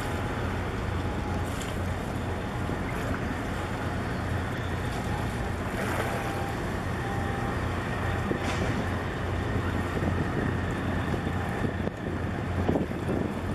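Wind buffeting the microphone over a steady low engine rumble on open harbour water, with a few stronger gusts near the end.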